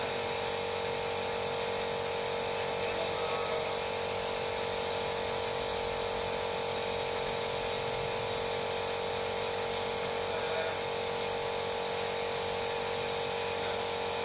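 Steady whir and hiss of a small electric motor running without a break, several steady tones over an even hiss.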